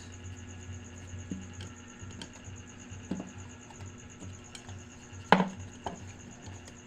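Scattered light taps and clicks of hands and small tools handling an opened Firefly bulb, the loudest knock about five seconds in, over a steady low hum.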